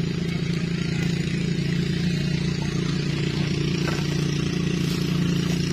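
A small engine running steadily: an even, low drone that holds at one pitch without change.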